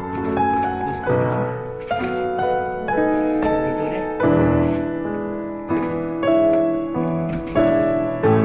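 Background piano music: a slow run of chords and single notes, each struck and left to fade.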